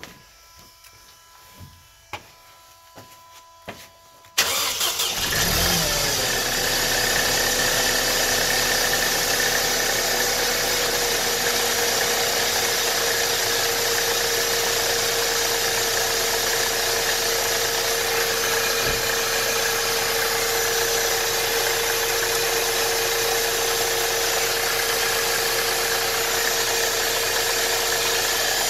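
Mercedes-Benz M271 1.8-litre four-cylinder engine, on its factory timing chain at about 280,000 km, starting suddenly about four seconds in. It settles within a couple of seconds into a steady idle with a constant whine. Before it starts there are only a few faint handling clicks.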